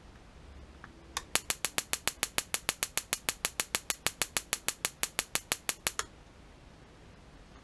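Homemade battery-powered high-voltage spark generator arcing from a water heater's spark rod to the pilot tube: a rapid, even train of sharp snapping sparks, about seven a second. It starts about a second in and cuts off suddenly after nearly five seconds.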